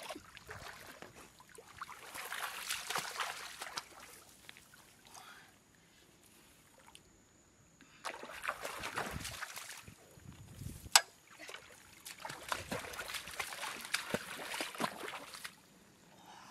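Shallow muddy water splashing and sloshing as a person wades through it, in three bursts of a second or two each, with a single sharp click about eleven seconds in.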